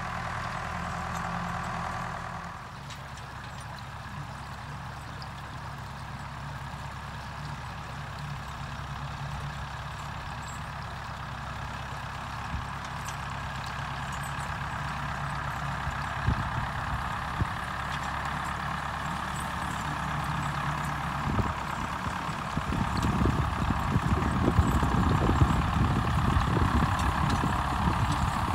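David Brown 990 tractor engine running steadily while driving a bush hog rotary mower. It grows louder and rougher over the last few seconds as the tractor comes closer through tall weeds.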